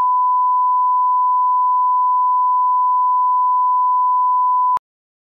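Steady 1 kHz line-up tone, a single pure pitch, as laid on a film or video leader for setting audio levels. It cuts off abruptly with a click near the end.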